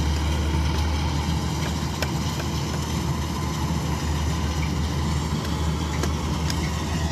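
Combine harvester's diesel engine running steadily under load while it cuts paddy: a continuous low drone with a mechanical hum above it.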